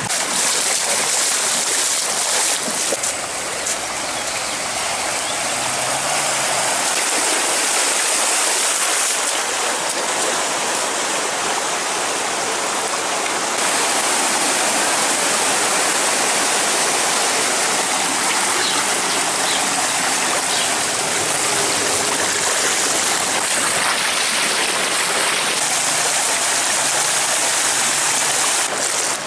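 Steady rushing of floodwater, a continuous hiss with no break and no distinct splashes.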